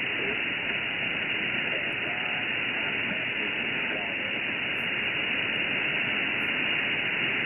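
Steady shortwave radio static from an HF receiver tuned to 8992 kHz, with all sound cut off above about 3 kHz. A faint voice, too weak to make out, comes and goes under the hiss.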